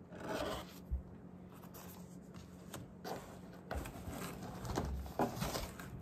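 Tissue paper and wrapping rustling in a cardboard shipping box as packed items are handled and one is lifted out, in irregular bursts with a soft knock about a second in.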